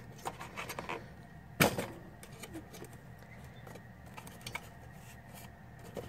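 Light handling clicks and knocks around a refrigerator's compressor assembly: a few small clicks, then one sharp knock about one and a half seconds in and a few fainter ticks, over a low steady hum.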